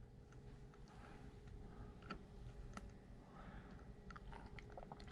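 Near silence: faint room tone with a steady low hum and a few faint clicks.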